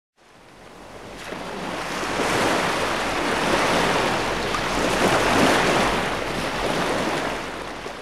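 Intro sound effect of a rushing, surf-like noise that swells in over the first two seconds, holds, and fades away at the end.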